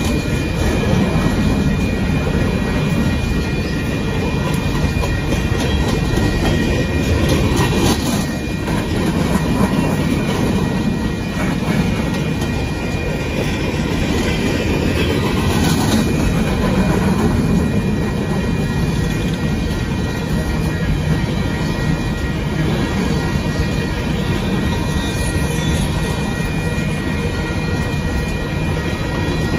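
Union Pacific coal train's cars rolling past close by: a steady rumble and clatter of steel wheels on the rails, with a thin high tone held throughout.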